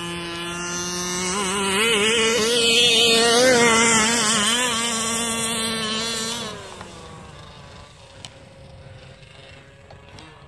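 Two-stroke gas engine of a 1/5-scale Rovan Losi 5ive-T-style RC truck running at high revs, its pitch wavering slightly as it grows louder toward the middle. About six and a half seconds in it drops away, leaving only a faint engine hum.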